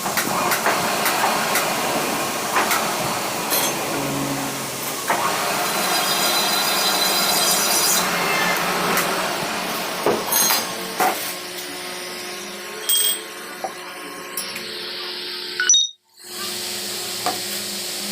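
Workshop tool work: continuous scraping and rubbing with scattered clicks and knocks, cut by a brief dropout near the end.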